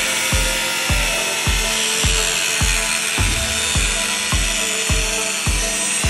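A power tool running steadily with a high, hissing whine, typical of drilling or grinding metal. Background music with a steady beat plays underneath.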